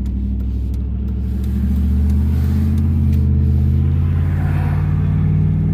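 Car engine and road noise heard from inside the cabin while driving: a steady low drone that grows slightly louder about two seconds in.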